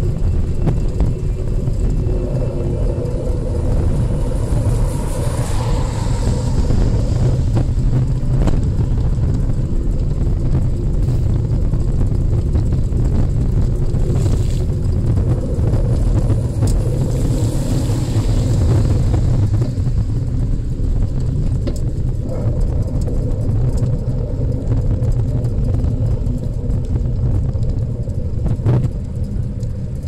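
Steady low rumble of travel along a rain-soaked road, with the hiss of car tyres on wet pavement swelling twice as vehicles pass, about five seconds in and again around seventeen seconds.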